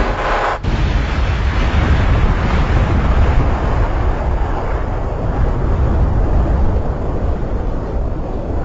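Loud, deep rumbling noise that starts abruptly out of silence, with a brief pitched sound in its first half second, then continues steadily and fades slightly near the end.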